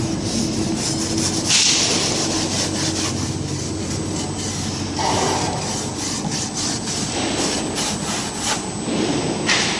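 Steady workshop din with scraping and rubbing noises and scattered knocks, a burst of hiss about a second and a half in and another near the end.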